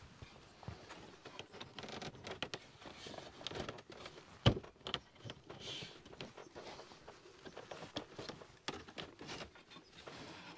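Wooden gunwale strips being handled and fitted into a birch-bark canoe frame: scattered light knocks and handling noise, with one sharp wooden knock about four and a half seconds in.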